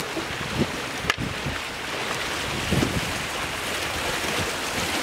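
Kayak paddles splashing and churning the water, with wind buffeting the microphone; a single sharp knock about a second in.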